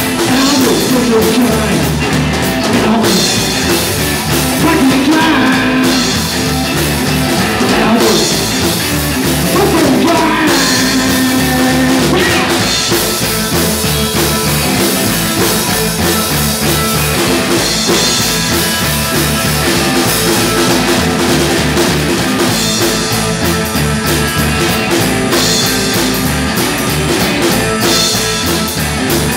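A rock band playing live: upright double bass, drum kit and electric guitar, with a man singing at times.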